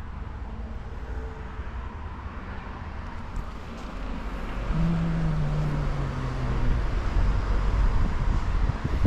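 A motor vehicle's low engine rumble, with an engine hum that drops slightly in pitch and grows louder in the second half.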